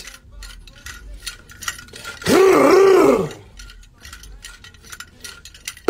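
A man's shouted vocal ad-lib lasting about a second, coming about two seconds in, its pitch rising and falling in a wavering yell. Faint clicking runs underneath.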